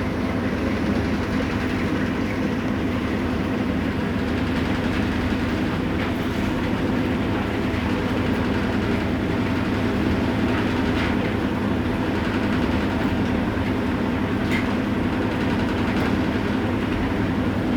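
Whirlpool washing machine running on a test load after new suspension rods were fitted: a steady motor hum with a churning mechanical rumble and a few faint clicks.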